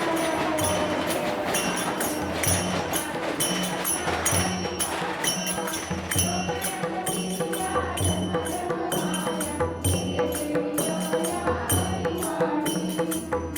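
Rhythmic percussion music: jingling metal percussion over a low drum beating steadily about once or twice a second, with held ringing tones.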